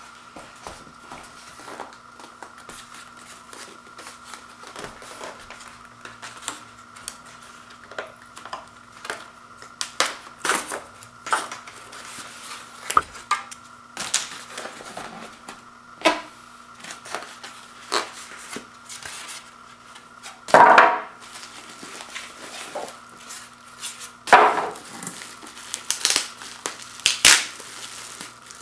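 Unpacking noises: a styrofoam packing insert handled and a plastic bag crinkled, making scattered taps, knocks and rustles, with two louder crinkles of plastic late on. A faint steady hum runs underneath.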